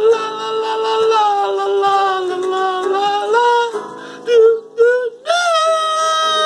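A man singing long, held wordless notes that step between pitches, breaking into two short notes about four seconds in before holding a higher note.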